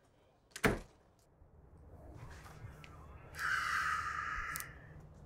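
A sharp knock under a second in, then a creak lasting about a second, a wooden chair taking a person's weight.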